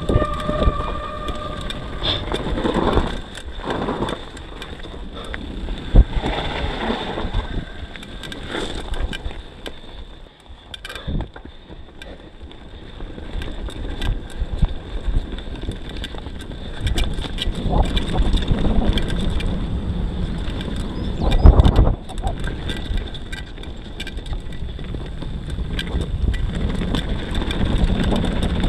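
YT Tues downhill mountain bike ridden over a dirt trail: tyres rumbling, the bike rattling and clattering over bumps, and wind buffeting the microphone. Hard knocks stand out about six seconds in and about twenty-one seconds in; the noise drops around ten to twelve seconds in as the bike slows, then builds again as speed picks up.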